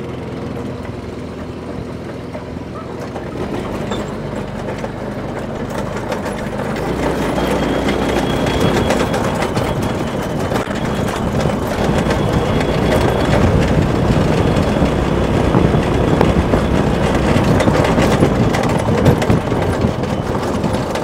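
Coleman KT196 go-kart's single-cylinder engine running as the kart pulls away and drives off. From about seven seconds in, a louder, even rushing noise covers it.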